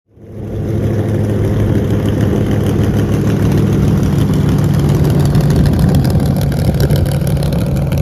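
Stewart S-51D Mustang's Chevy V-8 engine running steadily at taxi power, its propeller turning. The sound fades in over the first second.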